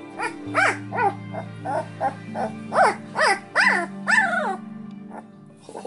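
Eleven-day-old standard poodle puppies crying, about ten short high squeals that each rise and fall, stopping about four and a half seconds in: the hungry cries of nursing pups. Background music with sustained low notes runs beneath them.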